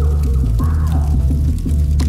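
Bass-heavy music with a steady beat of about four strokes a second and gliding melodic tones above it: the soundtrack of a cinematic video clip playing back.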